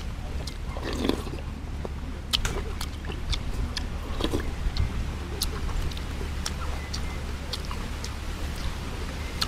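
Eating sounds: slurping and chewing of fish porridge, with scattered light clicks of a spoon and chopsticks against the bowls and plate, over a steady low hum. The two loudest mouth sounds come about a second in and about four seconds in.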